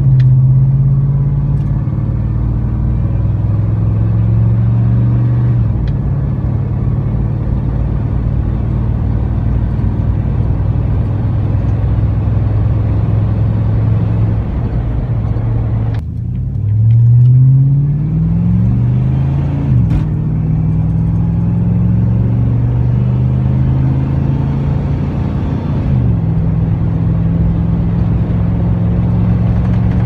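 A 1999 Chevrolet Silverado's 5.3L LM7 V8 exhaust droning inside the cab at a steady cruise through Cherry Bomb Extreme mufflers. About halfway through it cuts to the same truck with a Cherry Bomb M-80 muffler, accelerating with a rising pitch twice before settling back into a steady drone.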